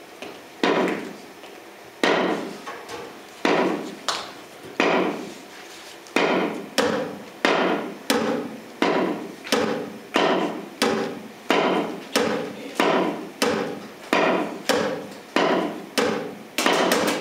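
Long wooden poles knocked upright against a wooden stage floor in a rhythm, each knock ringing briefly. Four knocks come slowly at first, then the beat doubles to about one knock every 0.7 seconds, with a quick flurry at the very end.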